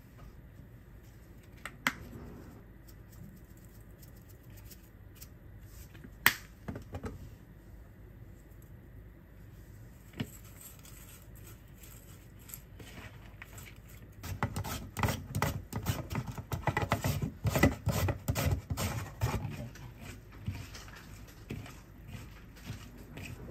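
Shredded cabbage and carrot being tossed and mixed by hand in a glass bowl for a cabbage-carrot rapé: a dense, crisp rustling that starts a little past halfway and grows busier. Before it there are only a few sharp taps and clicks.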